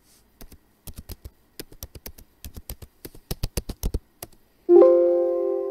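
Computer keyboard keys typed in a quick run of clicks as a password is entered, then, near the end, a loud computer alert chime that sounds a chord and slowly fades.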